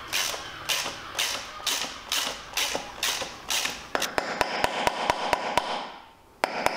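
Ratchet spanner doing up the sprocket bolts on a pit-bike wheel hub: first a row of evenly spaced strokes about two a second, then a fast run of ratchet clicks, a brief pause a little after six seconds, and fast clicking again.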